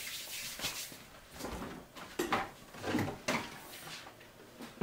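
Soft handling sounds as a refrigerator door is opened and a plastic milk jug is taken out: a few light knocks and rustles, irregularly spaced.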